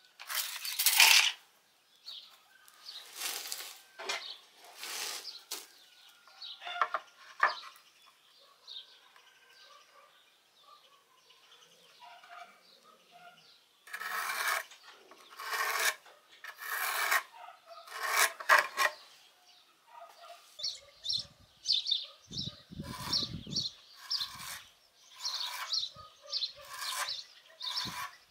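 Pencil scratching on a wooden board in repeated short strokes as lines are marked and a circle is traced around a disc, the strokes coming quicker near the end.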